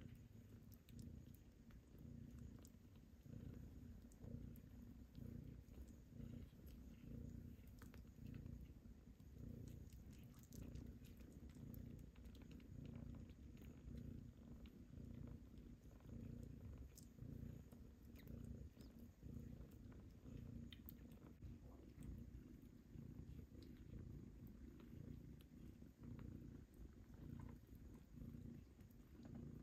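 Domestic cat purring faintly and steadily, with a regular pulsing rhythm.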